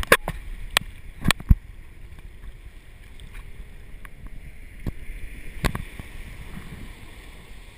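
Shallow sea water sloshing and slapping against a waterproof camera's housing at the waterline, with a handful of sharp knocks and splashes, the loudest in the first second and a half and another pair about five seconds in.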